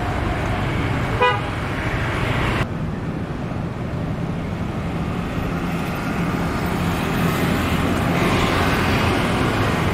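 Steady road traffic rumble with a short car horn toot about a second in; the background changes abruptly just under three seconds in.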